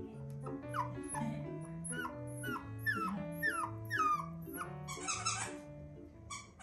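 Toy poodle puppy whimpering in short falling whines, about two a second, over background music.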